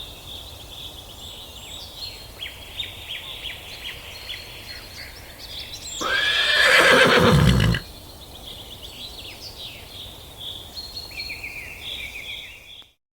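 A horse whinnies once, a loud call of under two seconds about halfway through that falls in pitch, over birds chirping. The audio cuts off near the end.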